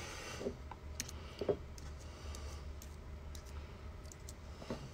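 Faint, scattered light clicks and taps from handling equipment, over a low steady hum.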